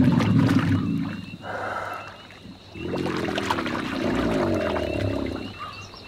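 American alligator bellowing in the breeding season, a low call with several overtones that ends about a second in and comes again from about three seconds in until near the end: the bull's loud advertising for mates.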